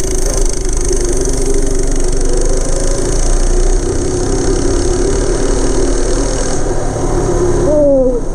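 Single-cylinder 212cc four-stroke go-kart engine with a stage 1 kit, running steadily; near the end its pitch drops.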